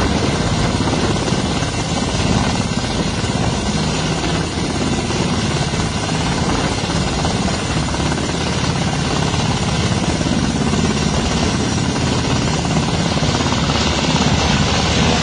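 UH-60 Black Hawk helicopter hovering, its main rotor chopping and its turbines running loud and steady throughout.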